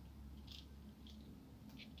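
Near silence: a low room hum with a few faint, short clicks of small parts being handled during laptop disassembly.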